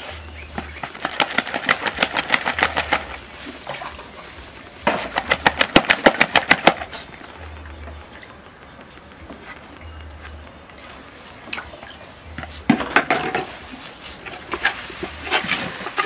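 Rapid rhythmic tapping and slapping of a ladle against a bowl as a lump of millet TZ is turned and molded, in bursts of a second or two with short pauses between.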